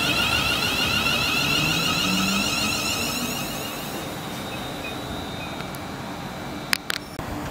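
London Northwestern Railway Class 350 Desiro electric multiple unit running past, its traction motors giving a high whine over the rumble of the wheels on the rails, fading as it moves away. Two sharp clicks near the end.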